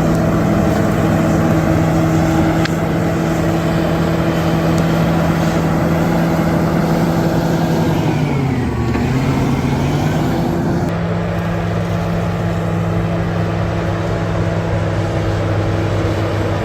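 Bulldozer's diesel engine running steadily. About halfway through its pitch dips for a couple of seconds and then comes back up, and about two-thirds through the engine note changes suddenly.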